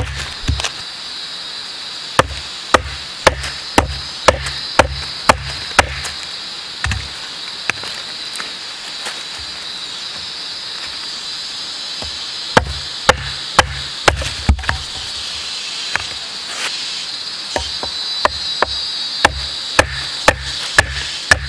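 Large fixed-blade knife chopping a thin dry branch against a log into firewood: sharp chops about two a second, in runs broken by a pause of several seconds in the middle.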